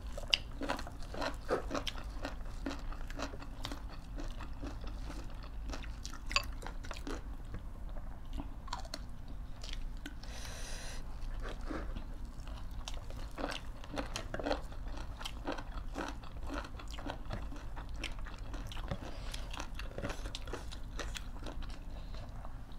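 Close-up mukbang eating sounds: chewing, biting and crunching of food, many short crackles and clicks in an uneven stream. There is a brief hiss a little before the middle.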